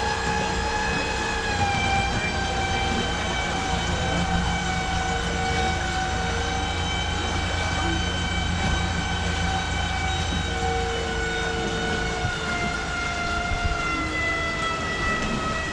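Glass-bottom tour boat's motor running underway: a steady whine over a low hum, its pitch easing slightly lower near the end.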